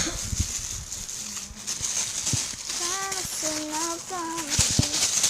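A young child's voice making a few short, high-pitched, sing-song syllables in the second half, with a few soft knocks near the start and a steady high hiss behind.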